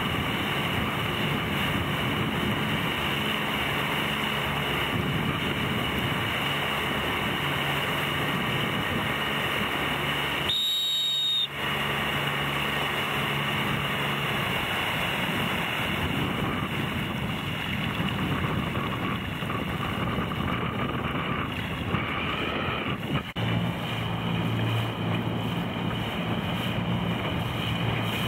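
Motorboat engine running steadily at speed, mixed with wind buffeting the microphone and water rushing past the hull. The sound briefly cuts out about eleven seconds in, and the engine's pitch drops a little a few seconds before the end.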